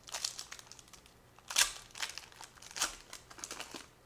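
Crinkling of a trading card pack wrapper being handled, in several rustling bursts, the loudest about one and a half seconds in.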